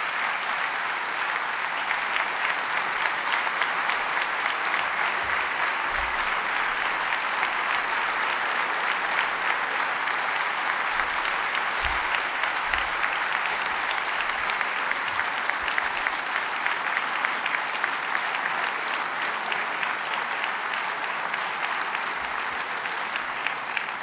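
Large hall audience of about two thousand people applauding in a long, steady standing ovation; the clapping thins out near the end.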